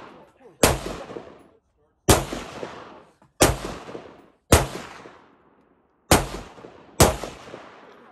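Gunshots fired one at a time: six shots about a second to a second and a half apart, each followed by a fading echo.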